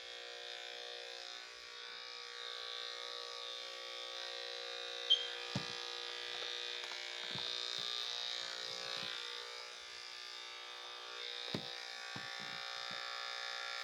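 Corded electric dog clippers running with a steady buzz. A few brief knocks and clicks come through, the sharpest about five seconds in.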